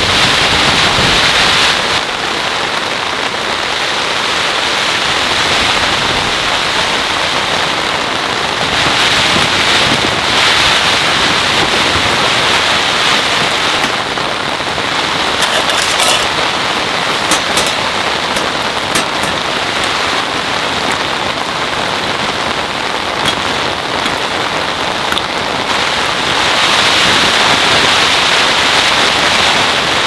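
Heavy rain pelting a tent's fabric, a steady dense patter. A few light metallic clinks come about halfway through as stainless bowls are handled.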